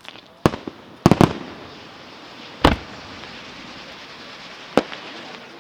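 Aerial fireworks shells bursting in separate sharp bangs: one about half a second in, a quick run of three about a second in, a heavier bang with a trailing rumble near the middle, and one more near the end, over a steady crackling hiss.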